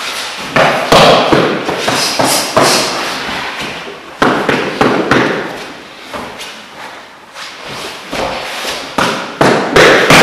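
Irregular thuds and slaps of bodies, hands and bare feet hitting the training mats, echoing in a large hall. There is a quieter stretch in the middle.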